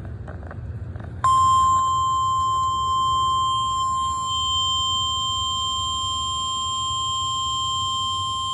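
NOAA Weather Radio 1050 Hz warning alarm tone: a single steady, unbroken tone that starts about a second in, over a low hum from the receiver. It is the signal that a warning, here a severe thunderstorm warning, is about to be read.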